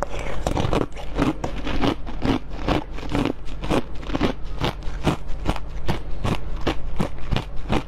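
Biting and chewing of blue jelly: a fast run of short clicks, about three or four a second.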